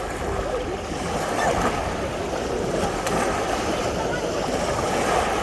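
Sea surf washing onto a beach, a steady wash of waves with faint voices of people in the background.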